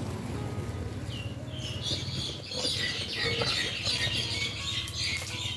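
Many small birds chirping busily, starting about a second and a half in, over a Buddhist monk's low, monotone blessing chant.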